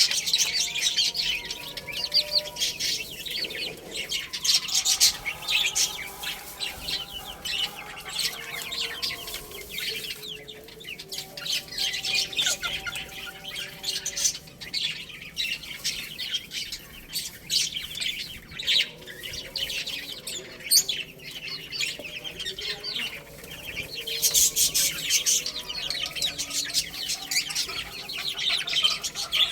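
A group of baby chicks peeping continuously in rapid, high chirps, with lower clucking calls mixed in.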